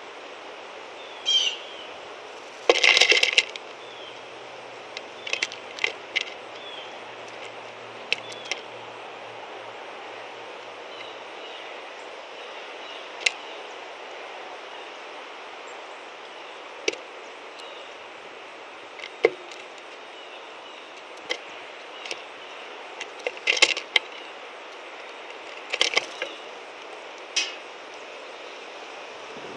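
A blue jay at a wooden feeder tray of peanuts and sunflower seeds, its landing and pecking making sharp, scattered taps and knocks on the board and shells, with a short dense clatter about three seconds in. A short bird chirp comes about a second in.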